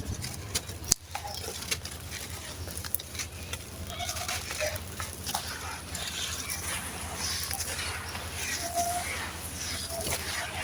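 Gritty sand cement crumbling and crunching, a continuous crackle broken by scattered sharp clicks, the loudest about a second in. A faint low hum runs underneath.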